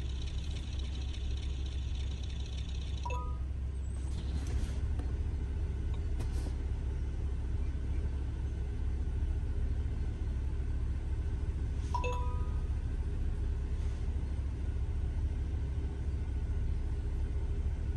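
BMW 125i's six-cylinder engine idling steadily, heard from inside the cabin. Two short electronic beeps sound, about three seconds in and again about twelve seconds in.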